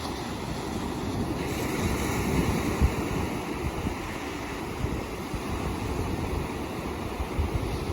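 Ocean surf: waves breaking and washing in, with one wave surging louder about a second and a half in and cresting around three seconds.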